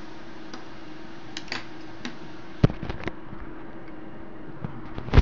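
Scattered small clicks and taps of iPad parts and tools being handled during disassembly, the sharpest about two and a half seconds in and another at the end, over a steady hum.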